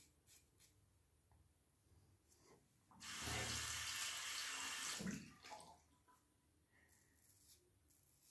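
Bathroom sink tap running for about two seconds, starting about three seconds in and then shut off, with faint small clicks and knocks before and after.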